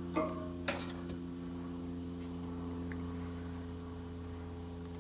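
Steady low hum with several overtones, holding one pitch, with a few short clicks and rustles about a second in.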